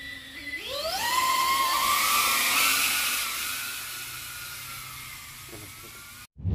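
Cinewhoop drone's ducted propellers and motors whining at idle, then rising sharply in pitch about half a second in as it throttles up and takes off. The whine holds, then fades as the drone flies away.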